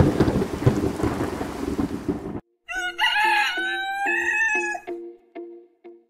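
Thunderstorm sound effect, thunder with rain, cutting off abruptly about two and a half seconds in. After a short gap a rooster crows once, for about two seconds, over a repeating music beat.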